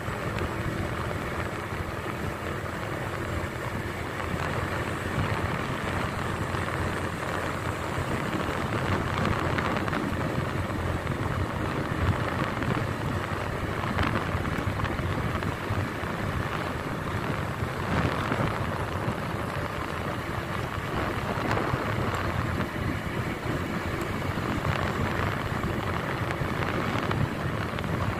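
Motorcycle running at a steady cruising speed, mixed with wind rushing over the microphone.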